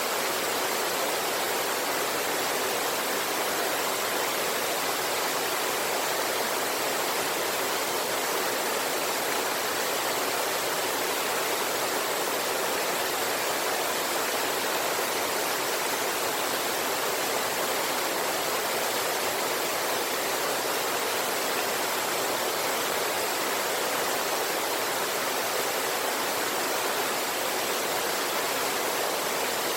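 Small waterfall and river water rushing, a steady, even splashing roar with no change throughout.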